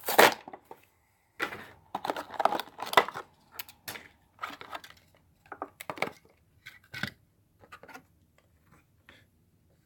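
Plastic blister packaging of a die-cast toy car crackling and tearing as it is cut and pulled open, in a run of short, irregular bursts that thin out over the last few seconds.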